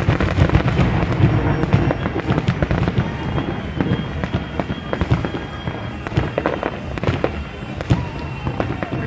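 Aerial fireworks display: shells bursting overhead in quick succession, densest and loudest in the first few seconds, then coming more spaced out.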